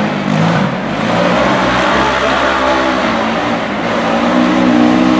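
Off-road UTV race engine running hard, its pitch climbing near the end as it revs up.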